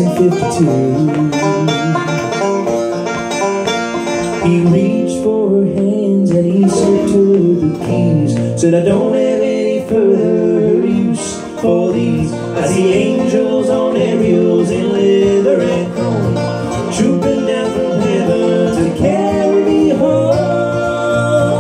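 Acoustic guitar and banjo playing together in a bluegrass-style instrumental passage, with continuous picked notes and no break.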